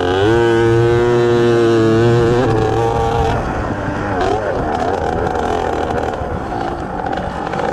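Small two-stroke kids' dirt bike engine revving up sharply, holding high revs for about two seconds, then easing off and running on at lower, varying revs, with a brief dip and pick-up about four seconds in.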